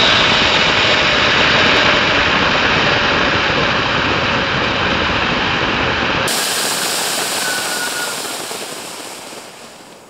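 Homemade rocket-fuel charge burning in a recorder-based siren: a loud, steady rushing hiss of gas jetting out. About six seconds in the sound turns thinner, and it fades over the last two seconds as the burn dies down.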